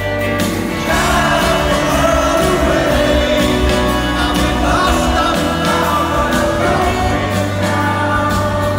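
A live rock band playing a song, with singing over guitars and a steady drum beat.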